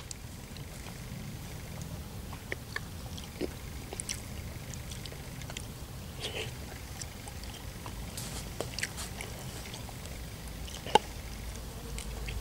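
A person eating ravioli: soft chewing with scattered light clicks of a fork against the pot, and one sharper click about eleven seconds in.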